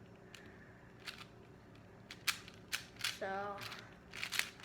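Plastic 4x4 Rubik's cube being turned by hand: a string of sharp, irregular clicks and snaps as its layers are twisted.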